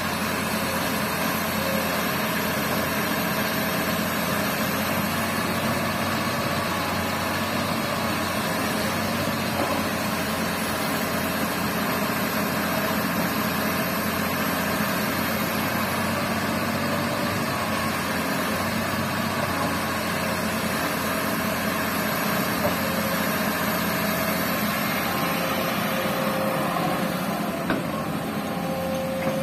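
Diesel engine of a Komatsu hydraulic excavator running steadily while it digs, a constant even hum with no distinct knocks.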